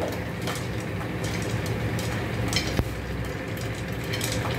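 Popcorn kernels popping inside a closed aluminium pressure cooker, a handful of sharp, separate pops spread out over a steady low rumble.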